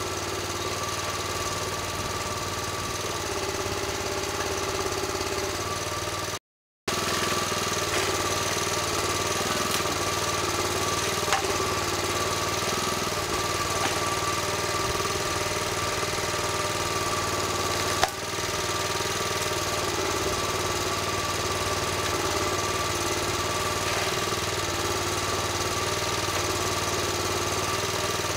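A small forestry machine's engine runs steadily, its note wavering slightly as the crane works. The sound drops out for a moment about a quarter of the way in, and there is a single sharp click about two-thirds through.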